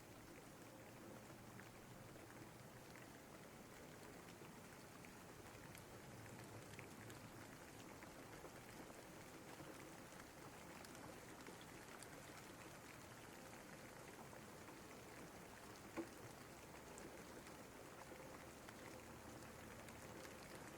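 Steady, soft rain, with scattered single drops ticking and one sharper tick about sixteen seconds in.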